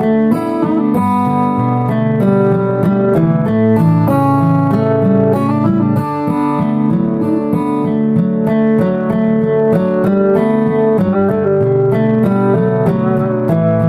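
Background music: an instrumental led by plucked strings, with notes changing steadily throughout.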